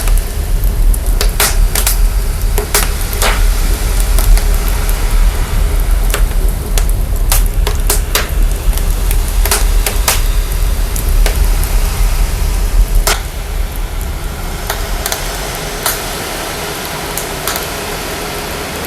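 Processed fire sound: crackling with scattered sharp pops over a steady hiss, laid on a heavy, deep sub-bass rumble that drops away late on.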